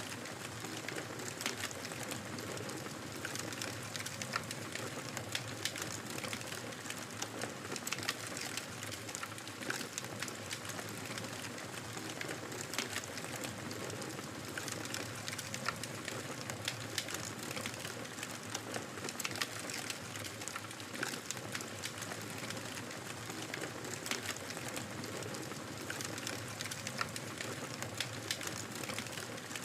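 Fire crackling in a fireplace: a steady soft hiss with many small sharp pops and snaps, several a second, at irregular intervals.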